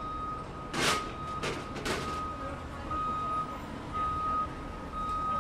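Baggage claim carousel's electronic warning beeper, one high steady beep of about half a second repeating roughly once a second, over the low hum of the hall. A few short bursts of noise break in about one and two seconds in.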